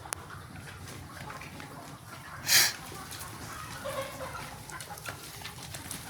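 Sonali desi chickens clucking faintly, with one short loud noisy burst about two and a half seconds in.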